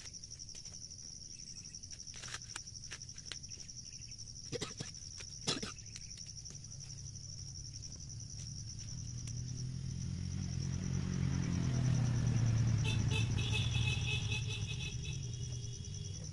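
Steady high drone of insects, with a few dry crackles of corn husks being pulled off the cobs in the first seconds. From about eight seconds in, the low engine hum of a passing vehicle grows louder, peaks, and fades toward the end.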